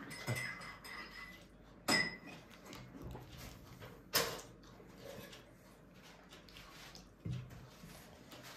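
Three light knocks of tableware against a tray, a couple of seconds apart, over quiet room tone.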